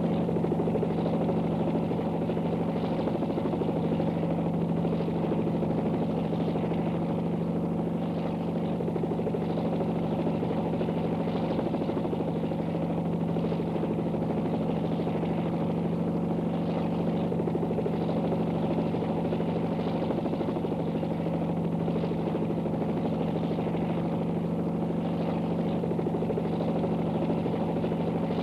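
Steady, even engine drone of the aircraft flying the aerial shots, heard from inside, with a strong low hum and no change in pitch.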